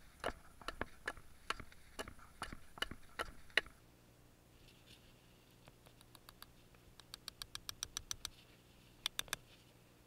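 Hatchet working a wooden stick against a wooden block: about a dozen uneven knocks, then after a short pause a quick run of light taps, and three sharp knocks near the end.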